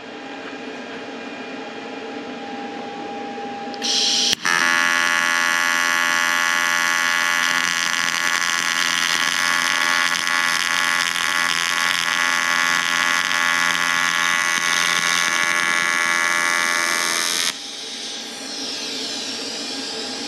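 AC TIG welding arc on aluminium sheet from a YesWelder CT2050: after a low hum, a hiss starts about four seconds in and the arc strikes with a sharp click, then buzzes loudly and steadily for about thirteen seconds before cutting off suddenly, leaving a quieter hum.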